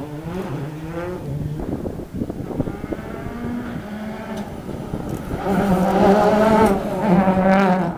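Rally car engines revving hard with the pitch rising and dropping through gear changes. A red Ford Fiesta rally car comes closer and is loudest in the last couple of seconds, then the sound drops away sharply at the very end.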